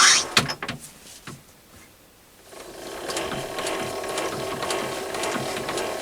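Myford ML7 lathe's change-gear train and lead screw clicking and rattling as the spindle turns during a screw-cutting pass. There are a few separate clicks at first, then after about two and a half seconds a steady run of fast ticks.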